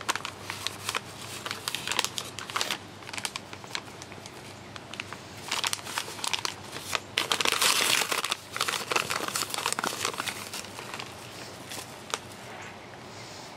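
Cake-mix bag crinkling and rustling as dry cake mix is shaken out of it, in irregular crackly bursts that are busiest and loudest around the middle.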